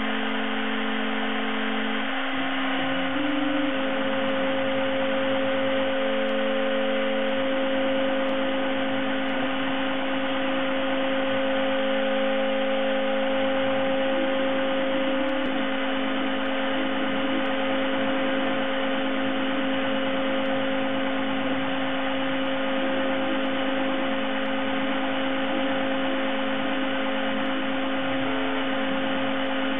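Desktop CNC mill running while a small ball-nose cutter mills a rotating workpiece: a steady motor hum with held tones, some of which shift in pitch now and then as the axes change speed.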